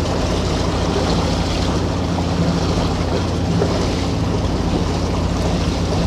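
Sailing yacht under way with its sails down, a steady low engine hum under continuous wind and water noise.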